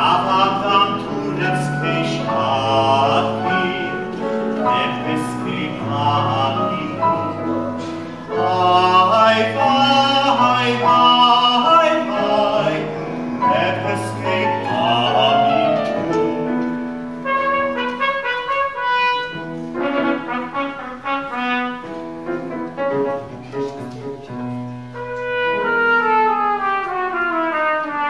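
Youth choir singing in several parts, sustained chords moving every second or so, with the voices sliding down in pitch together near the end.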